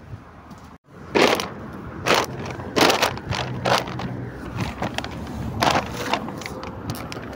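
Footsteps crunching on loose gravel and broken stone, a short crunch with each step, roughly one step a second, starting about a second in.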